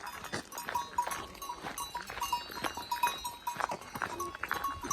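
Cowbells on grazing cows clanking irregularly, several bells ringing over one another in an uneven jangle.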